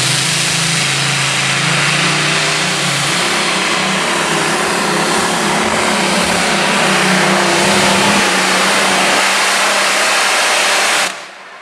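Allison V-12 aircraft engine of a modified pulling tractor running flat out as it launches and drags the pulling sled down the track. It cuts off suddenly near the end.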